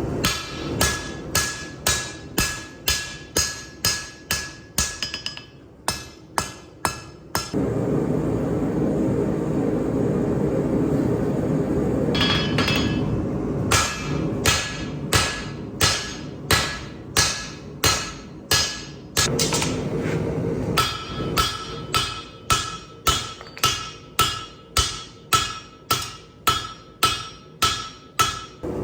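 Hammer striking steel on an anvil in steady runs of about two blows a second, each blow ringing with a clear tone. Twice the hammering stops and a steady rushing noise fills the pause.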